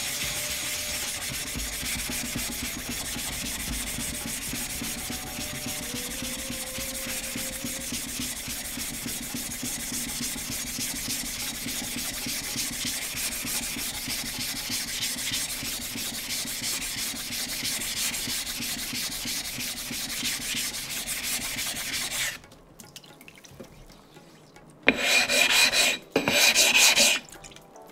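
Wet abrasive scraping on a 3000-grit whetstone, a steady rapid back-and-forth rasp that stops about 22 seconds in. Two short, louder rasping passes follow near the end.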